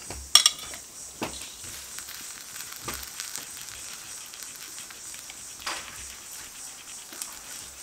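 Hot coconut oil with cooked-down star fruit juice sizzling and crackling in a wide brass pan just off the heat, a steady fine crackle with a few louder pops. A sharp tap near the start is the loudest sound.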